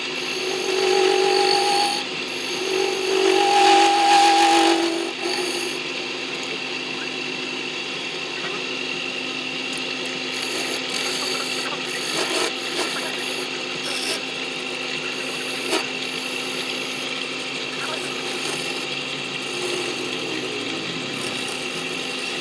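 Wood lathe running steadily while a turning tool cuts the spinning wood. The cutting is loudest in the first five seconds, with a pitched whine, then settles to lighter scraping with a few sharp clicks.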